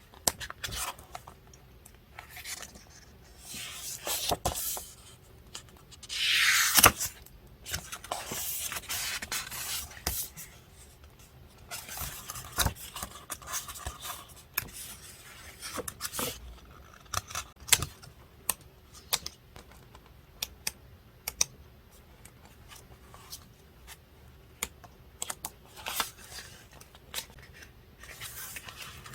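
Paper-crafting handling sounds: paper and stickers being rustled, scraped and set down, with many small clicks and taps. A louder rasping sweep comes about seven seconds in, with more scraping stretches after it.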